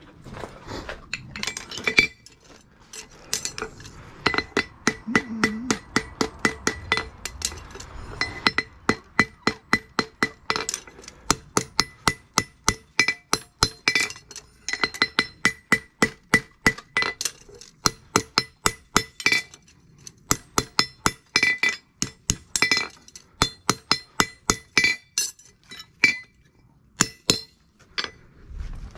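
Farrier's hammer striking a steel horseshoe on an anvil in quick runs of blows, about three a second with short pauses, each blow ringing.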